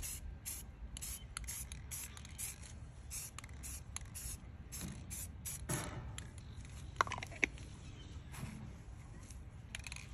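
Aerosol spray-paint can hissing in many short bursts, two or three a second, thinning out after about four seconds. Two short, sharp chirps come about seven seconds in.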